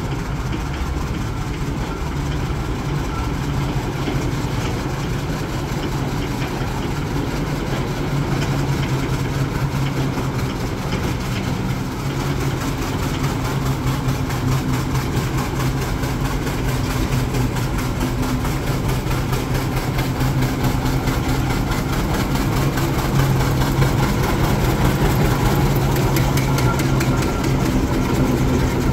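An engine running steadily, getting a little louder over the last few seconds.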